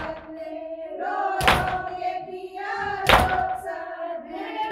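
Matam: hands beating on chests in a slow, even rhythm, a sharp slap about every second and a half, keeping time for a nauha lament sung in long, wavering lines between the beats.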